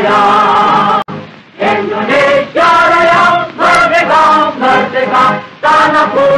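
Choir of male and female voices singing a song in phrases of about a second, with a short break about a second in.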